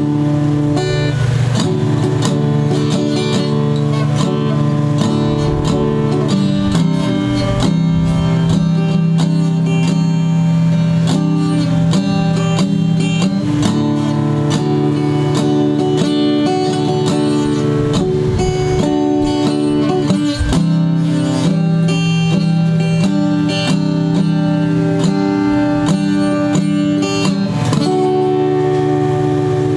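Guitar music: strummed acoustic guitar chords playing steadily.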